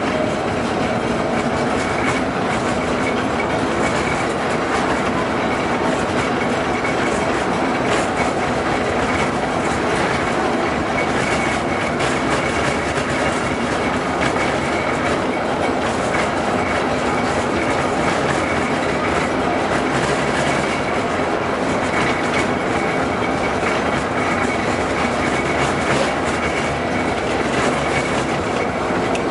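An LM-68M tram running steadily along the track, its wheels clicking over the rail joints, with a faint high whine from the running gear.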